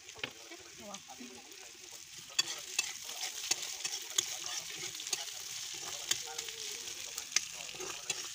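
Meat with minced ginger and garlic sizzling in hot oil in a black kadai while a metal spatula stirs it, scraping and clicking against the pan now and then. The sizzle grows louder about two and a half seconds in as the mixture is turned.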